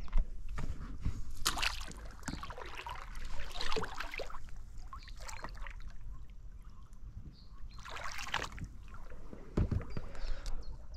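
Oars of an inflatable rowing boat being pulled through the water, the blades splashing and swishing in a few separate strokes. A dull low knock near the end.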